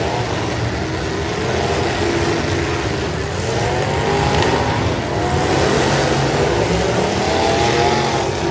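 V8 engines of several demolition derby cars running hard and revving, the pitch rising and falling as the cars push against each other.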